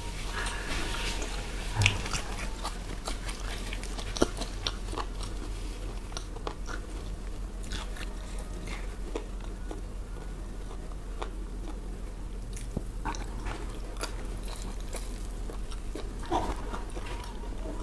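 Close-miked chewing of a mouthful of rice and sambal-cooked chicken gizzard and heart eaten by hand, with irregular wet mouth clicks and smacks.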